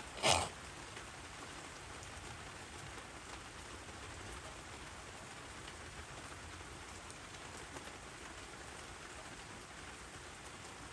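Steady rain falling, an even hiss throughout. About a third of a second in there is one short, sharp sound, much louder than the rain.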